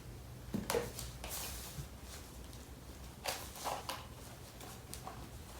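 A few short, soft rustles and clicks from handling small devices and cables, over a low steady background hum.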